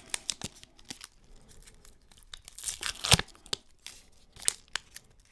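Plastic wrapper of a snack bar crinkling and tearing in irregular crackles, with one sharper tear about three seconds in.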